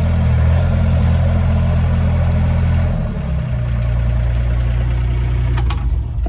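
Diesel engine of a CAEL 4-ton mini excavator running steadily at working speed. Its note drops slightly about three seconds in, a couple of sharp clicks come near the end, and then the engine sound cuts off abruptly.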